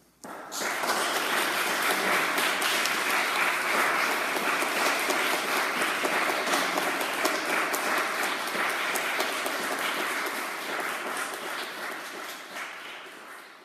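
Audience applauding, starting about half a second in and holding steady, then tapering off near the end.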